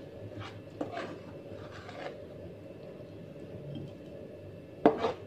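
Spatula scraping in a wok and scooping stir-fried snails and green chili onto a plate: soft scrapes and light clicks of snail shells, with a sharper knock near the end, over a steady low background noise.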